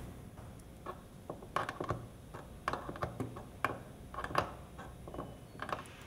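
A dozen or so small, irregular clicks and taps from hands removing a conductivity probe from a humidifier's plastic level-control canister: taking off its top wire and unscrewing it.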